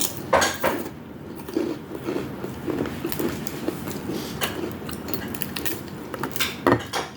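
Eating sounds: chewing and biting into deep-fried food, with scattered sharp clicks of cutlery or dishes.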